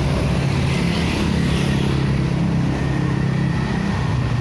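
Road traffic going past, with a heavy vehicle's engine running steadily from about a second in until near the end. No horn is sounded.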